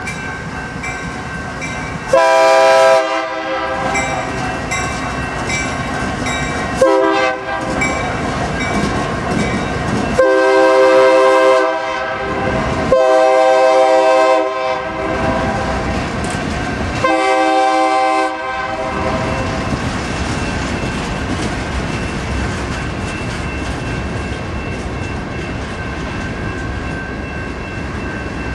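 Air horn of a lead EMD SD60M locomotive sounding five chord blasts, the first two short and the last three longer, over the steady rumble and clickety-clack of a rock train's hopper cars rolling past.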